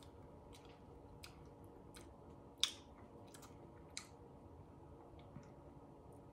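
Faint mouth sounds, a few short lip smacks and tongue clicks, from people tasting a sip of a drink. The loudest comes about two and a half seconds in, and a smaller one about a second later.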